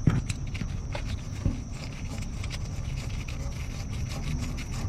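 Metal clicks and scraping of hand work on a starter's 14 mm mounting bolt: a sharp click at the start and another about a second and a half in, then a fast, even ticking. A steady high insect drone sits underneath.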